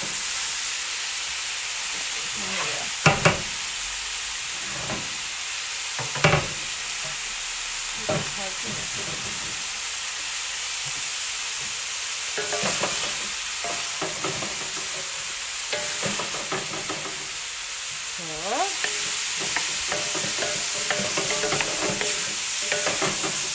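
Vegetables and chicken stir-frying in a hot Weber wok: a steady sizzle, with wooden spatulas scraping and knocking against the pan. A couple of sharp knocks come about 3 and 6 seconds in, and busier stretches of stirring near the middle and toward the end.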